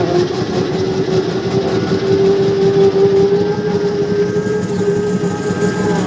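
A motor vehicle's engine running steadily with a rumbling drone, its hum rising slightly in pitch.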